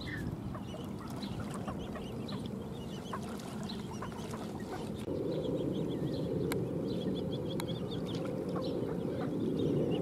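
Ducks and ducklings giving short, quiet calls and peeps, scattered throughout, over a steady low background noise that grows louder about halfway through.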